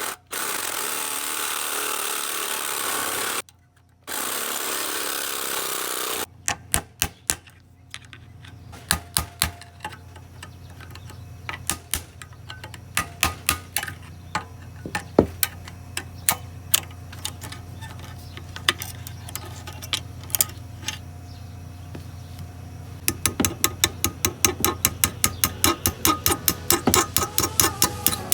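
A power tool cutting into the brass of a water heater's pressure relief valve, run in two stretches of a few seconds with a short stop between, then many sharp knocks at an uneven pace that turn fast and dense near the end.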